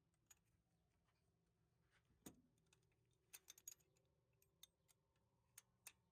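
Faint, scattered metallic clicks and clinks of hand tools, a socket and extension being worked on a spark plug, with a quick run of clicks about halfway through.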